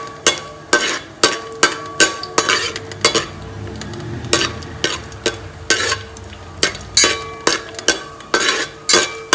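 Metal spoon stirring cashew nuts frying in ghee in a metal pot: repeated scrapes and knocks against the pot about twice a second over a light sizzle. The cashews are being sautéed toward a light golden brown.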